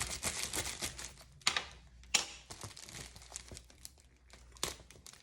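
Plastic shipping mailer crinkling and rustling as hands struggle to open it: dense crinkling for about the first second, then sparser rustling broken by three sharp crackles.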